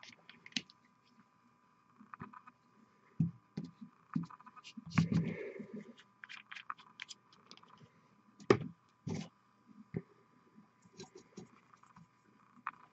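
Scattered small clicks, taps and scrapes of hands handling painting tools and a miniature at a desk, with a sharper tap about eight and a half seconds in, over a faint steady hum.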